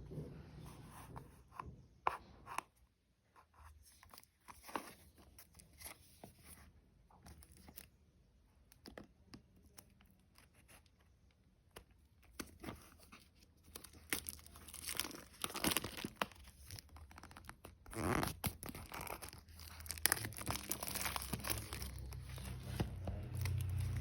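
Phone packaging being handled and torn open: scattered tearing, crinkling and small taps, sparse at first and busier through the second half.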